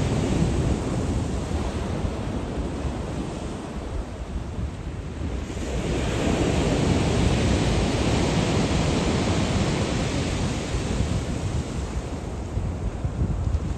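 Ocean waves breaking and washing up the shore at Qixingtan. One wave surges in loudly about halfway through, then slowly recedes.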